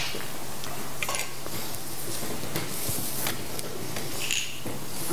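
Scattered light clicks and clinks of small communion cups being set down and handled, with soft rustling and shuffling movement over a steady low hum.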